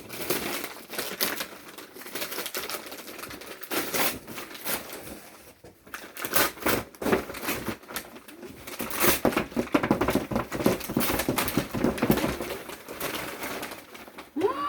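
Paper gift packaging being handled, crinkling and tearing in irregular bursts as a birthday present is unwrapped.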